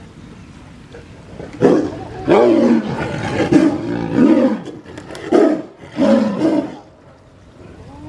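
Siberian tiger calling: a run of about five or six loud calls, each rising and falling in pitch, starting a second and a half in and stopping a second before the end.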